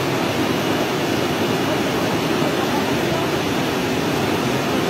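Steady rushing of a fast, muddy flash-flood torrent surging through a river channel.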